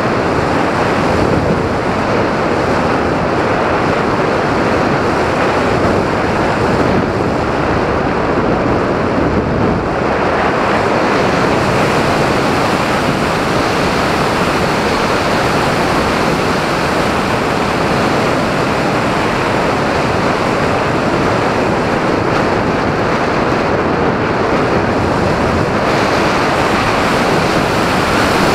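Wind rushing over the microphone of a camera mounted on a flying RC glider: a steady, loud rush of air noise with no pitched engine tone.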